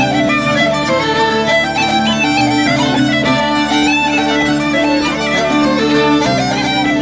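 Irish traditional tune played on fiddle and uilleann pipes, with a strummed bouzouki behind them. The pipes' drones hold one steady note under the melody.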